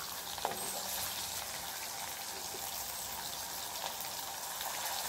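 Fish pieces frying in hot oil in a wok: a steady sizzling hiss, with one light knock about half a second in.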